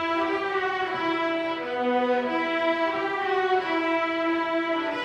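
Middle school string orchestra of violins, cellos and double basses playing, with held bowed notes that move from pitch to pitch every second or so.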